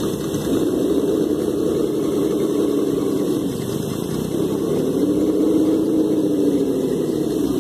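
Small electric motor and gears of a 1/10-scale Traxxas TRX-4 crawler whining under load, the pitch rising and falling as the truck creeps up a wooden plank.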